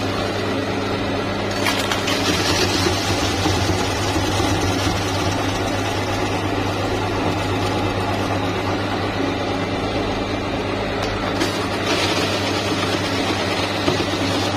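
Electric meat grinder running steadily with a constant low hum, its auger grinding Oreo cookies and pushing the crumbs out through the cutting plate.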